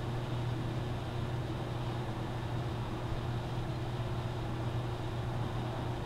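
RCA microwave oven running with a steady low hum, heating bottles of alcohol inside.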